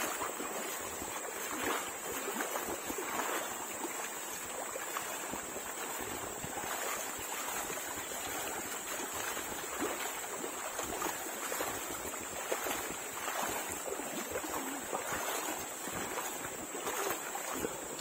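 Several people wading through a shallow stream in sandals: water splashing and sloshing with each step in an irregular patter, over a steady high-pitched buzz.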